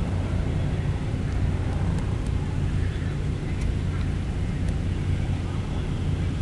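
Steady low mechanical hum and rumble, with a few faint ticks.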